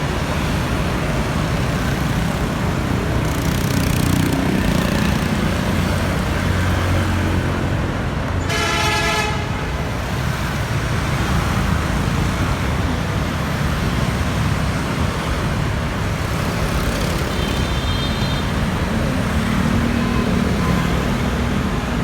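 Busy city street traffic: a steady noise of passing engines and tyres, with a vehicle horn honking once for about a second, around eight seconds in.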